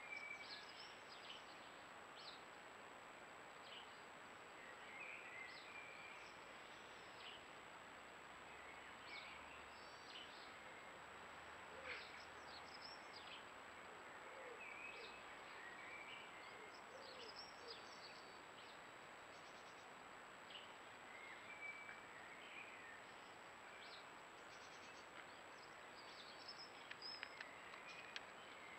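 Faint birdsong: several birds giving short chirps and whistles, scattered irregularly, over a steady hiss.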